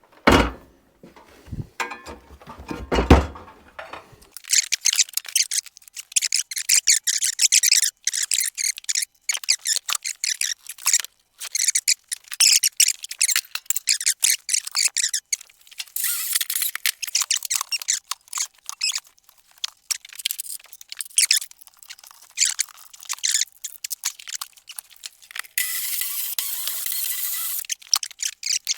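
Wooden wall boards and nails squeaking and scraping as they are worked loose to open the wall, with a few knocks in the first seconds. The sound is a rapid run of high-pitched squeaks and scrapes, with a steady hiss lasting about two seconds near the end.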